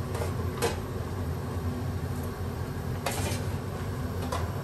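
Pork belly being pushed under the water in a large stainless-steel stockpot: a few short knocks and splashes, the busiest about three seconds in, over a steady low hum.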